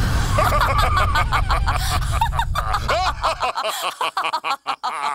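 Deep rumble of a cartoon explosion dying away, cutting off about three and a half seconds in, with two cartoon characters laughing in quick bursts over it; the laughter goes on after the rumble stops.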